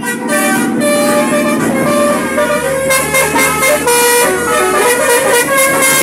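Multi-tone 'telolet' horn playing a quick melody of short notes that jump in pitch, over road traffic noise.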